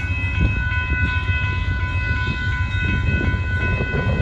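Amtrak Texas Eagle passenger train under way at the crossing: a steady, heavy low diesel rumble, with several faint constant high tones held over it.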